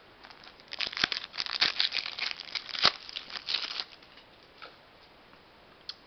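Wrapper of a 2020 Topps Opening Day baseball card pack being torn open and crinkled by hand. A quick run of sharp crackles lasts about three seconds and stops about four seconds in.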